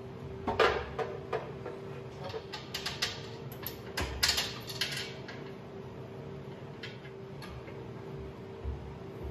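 Scattered metal clinks and clanks of hand tools and fittings as the brass and copper air-outlet fittings on an air compressor pump are worked loose, busiest in the first half.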